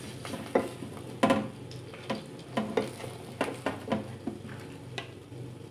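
A wooden spatula scraping and knocking in a non-stick frying pan, about nine short strokes, as battered stuffed bitter gourds are lifted out, over a faint sizzle of hot oil and a steady low hum.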